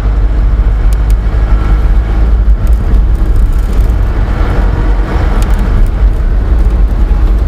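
Vehicle driving along a sandy desert track: a steady, loud low rumble of engine and tyres.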